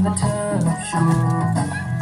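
Music: held bass notes that change every half second or so, under a melody line.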